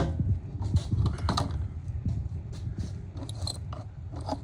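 Small tools and hardware being handled and rummaged in a toolbox drawer: scattered clicks, knocks and clinks, over a steady low hum.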